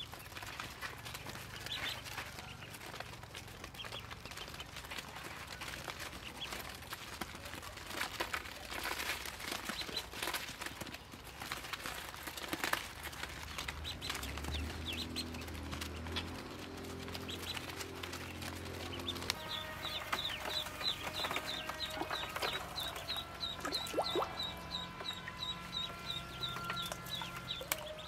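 A flock of Muscovy ducklings peeping: many short, high calls overlapping, settling into a fast, regular run of peeps in the last third.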